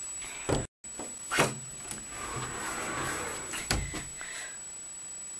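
Wooden closet door handled shut and open: a few dull knocks, about half a second, a second and a half, and near four seconds in, with a brief dropout just under a second in.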